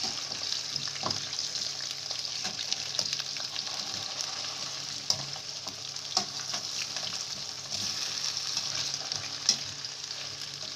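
Taro cubes sizzling as they fry lightly in shallow oil, being stirred and turned with a wire skimmer. The skimmer clicks sharply against the metal pan a few times over the steady sizzle.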